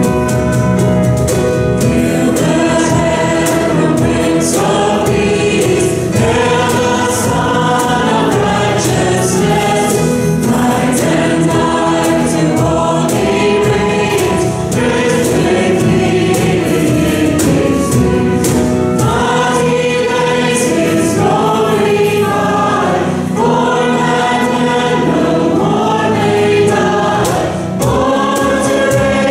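Church congregation singing a hymn together with instrumental accompaniment, with a steady beat running through.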